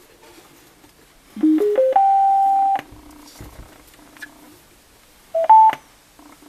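Bluetooth amplifier board's prompt tones through the radio's speaker: a quick rising run of four beeps ending in a held tone, then a short two-note rising beep about four seconds later, typical of a Bluetooth module's power-on and connection chimes. A faint low hum lies underneath.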